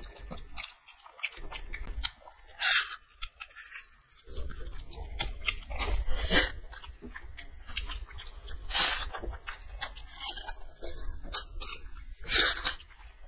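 Two people eating Maggi noodles straight from their plates with their mouths, no hands: wet chewing and slurping, with several louder slurping bursts spread through.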